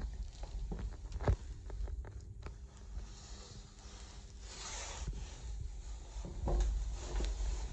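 Handling noise in a small steel-walled compartment: a low rumble with scattered knocks and rubbing, and one sharper knock about a second in.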